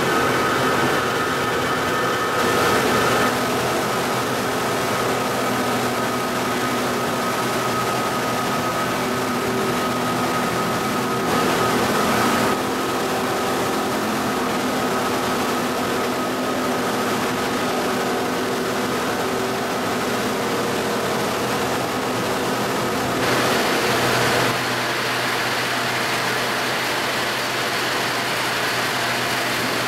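Plastic film washing-line machinery running steadily: an even mechanical hum carrying several steady tones. Three short louder rushes of noise come a couple of seconds in, near the middle, and about three-quarters through.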